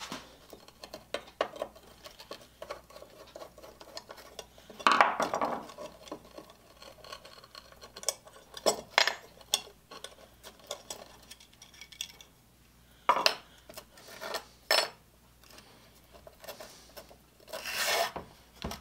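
Scattered clinks, taps and short scrapes of a steel spoke shave blade being handled and set down on a sandpaper-covered flat board, with a longer rub about five seconds in and another near the end.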